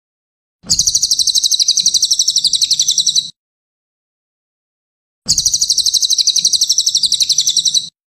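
Cililin bird song: two rapid, high-pitched trills, each about two and a half seconds long at roughly ten notes a second, with a pause of about two seconds between them.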